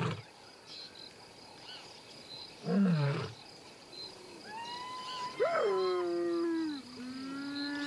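Wild animal calls: a short low call about three seconds in, then from about five seconds long drawn-out calls that slide down in pitch and hold, several overlapping near the end, over a faint high chirring.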